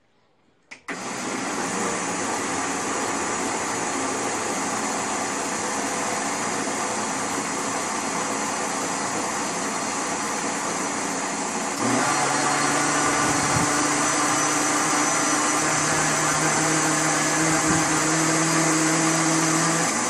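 Electric countertop blender running, mixing a thick corn cake batter with baking powder just added. It starts about a second in as a steady whir, then about halfway through changes tone and gets slightly louder.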